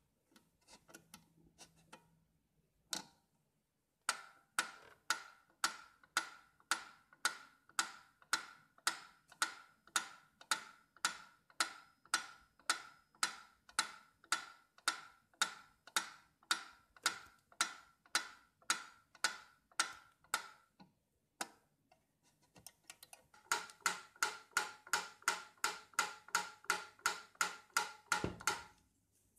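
GEWA mechanical pyramid metronome: a few faint clicks as the sliding weight is set, then the pendulum ticking evenly at about two ticks a second, each tick with a short ring. After a brief pause it ticks again, faster, at about three ticks a second.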